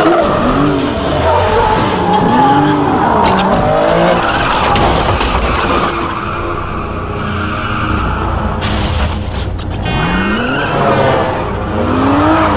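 Car engines revving hard, their pitch rising and falling again and again through gear changes, with tyres squealing and skidding.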